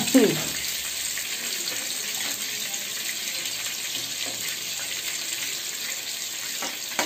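Pieces of marinated sailfish sizzling steadily as they fry in hot oil in a pan.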